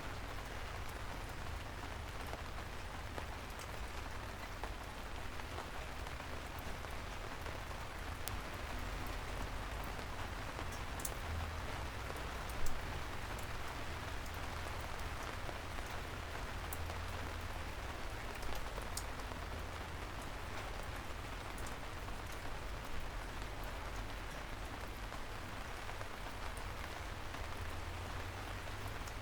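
Steady light rain falling on street surfaces, individual drops ticking over an even patter, with a low rumble underneath and one sharper drip or tap about halfway through.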